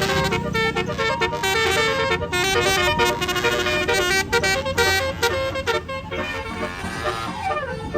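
Bus 'telolet' horn of the Basuri multi-tone type playing a quick melody of short notes over a low engine rumble; near the end the notes slide downward as the tune ends.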